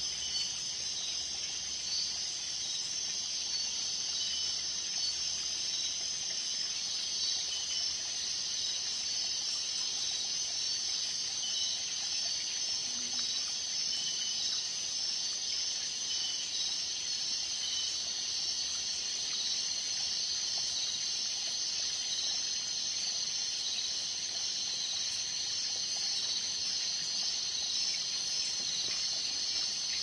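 Dense night chorus of insects, crickets and katydids, chirping and trilling together in a steady, high-pitched wash with quick repeating pulses.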